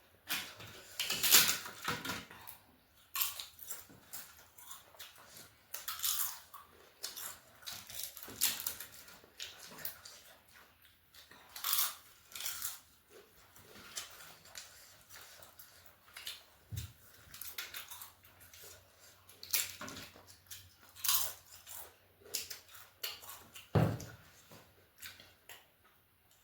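A person chewing and crunching crisp food close to the microphone, in short irregular crunchy bites.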